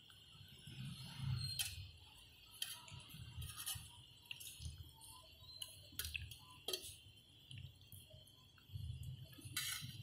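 Faint, scattered clinks and taps of metal kitchenware, a steel bowl and a cooking pot being handled, about eight in all, with soft low thuds between them. A faint steady high hum sits underneath.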